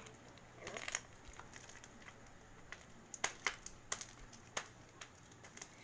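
Homemade glue-and-detergent slime being worked, giving faint, scattered sticky clicks and crackles; the slime is still sticky, not yet set.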